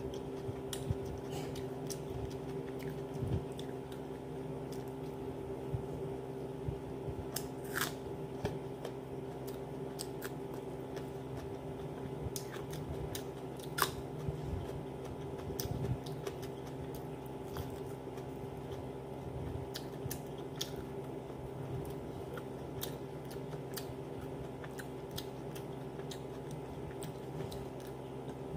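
Eating sounds of a person tearing chicken and rice by hand: chewing, biting and small crunches, with scattered sharp clicks, the loudest about 14 seconds in. A steady low hum runs underneath.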